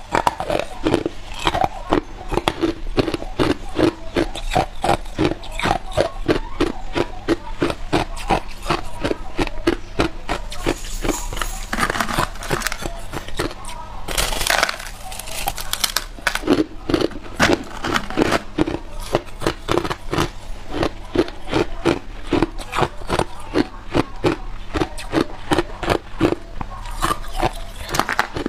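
Crushed ice being bitten and chewed close to a clip-on microphone: steady crunching at about three crunches a second, with a sharper, louder crunch about halfway through.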